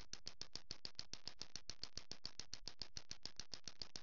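Radio-frequency impulse jammer for electricity meters at work: a fast, even train of faint clicks, about thirteen a second, with a hissy high edge. This is the sound the device makes while it is working.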